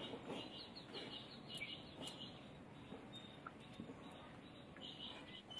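Faint bird chirps: short high notes in quick runs, a burst in the first two seconds and another near the end.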